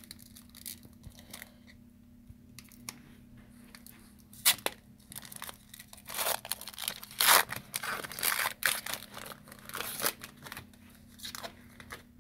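A Diamond Kings baseball card pack's wrapper being torn open and crinkled, in a string of short ripping and crackling bursts that start a few seconds in.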